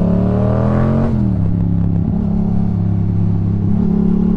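Motorcycle engine heard through a helmet-mounted mic, rising in pitch for about a second as it accelerates, then dropping suddenly as the throttle eases or a gear changes, and running steadily after, with road and wind noise.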